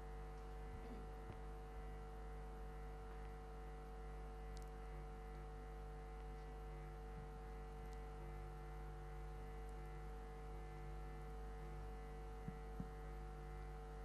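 Steady electrical mains hum from the sound or recording system, with two faint clicks near the end.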